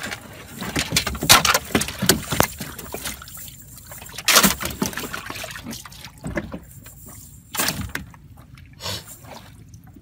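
Irregular knocks, thumps and water splashing in a small boat as a wet cast net is handled over caught catfish on the wet boat floor, with water dripping from the net.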